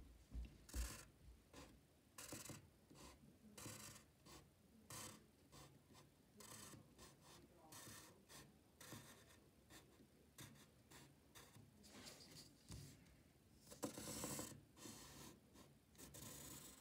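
Yellow wooden pencil drawing lines on paper: faint, scratchy strokes, each lasting a fraction of a second, with a longer stroke about fourteen seconds in. There is a soft knock in the first second.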